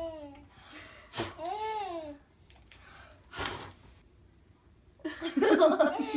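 A nine-month-old baby laughing in a loud, quick run of giggles about five seconds in, after a short high-pitched squeal. Two sharp puffs of breath blowing at the candles come before the laughter.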